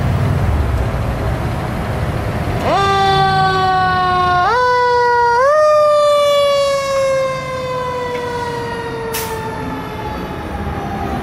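Spartan pumper fire engine's siren starting up about three seconds in over the truck's low engine rumble. It is pushed up in pitch twice in quick steps, then slowly winds down in pitch as the truck pulls away.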